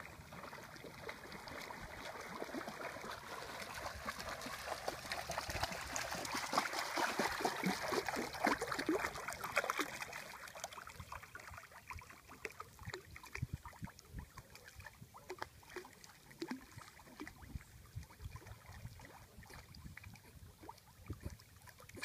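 Lake water splashing and lapping as two West Highland White Terrier puppies paddle through it, a run of small splashes that grows louder about a quarter of the way in and then thins out.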